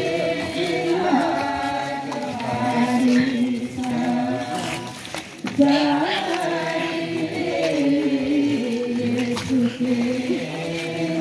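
A group of voices singing a slow Sadri Way of the Cross hymn in long held notes, with a brief break about halfway through.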